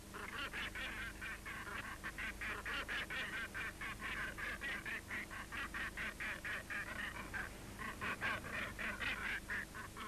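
Northern gannets calling at a breeding colony: a fast, unbroken run of short calls, about three a second, dipping briefly a little past halfway before picking up again.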